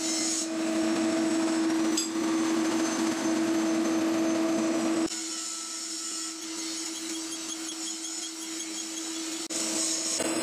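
Heavy drilling machine running, a steady motor hum with workshop noise. It drops abruptly in level about halfway through, and faint regular ticking sits in the quieter stretch.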